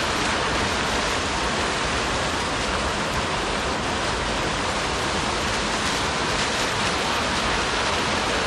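Creek water rushing steadily over rocks into a pool, a loud, even hiss with no breaks.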